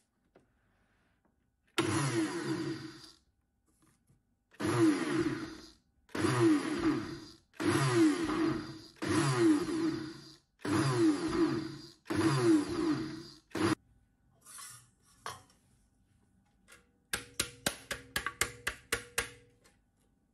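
Food processor grinding almond flour, powdered sugar and cocoa powder in seven short pulses, each starting sharply and dropping in pitch as the motor runs down. It is pulsed only lightly because grinding at high speed would draw oil out of the almond flour. Near the end comes a quick run of about a dozen light taps.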